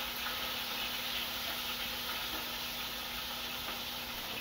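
Steady sizzling of hot oil in a pot as onion, tomato and garlic fry, with a faint constant hum underneath.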